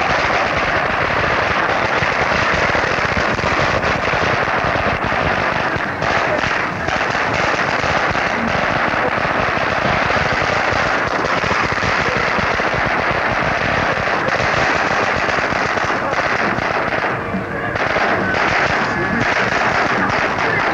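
A long firecracker string going off in a continuous rapid crackle of countless small bangs, with brief dips around 6 and 17 seconds in.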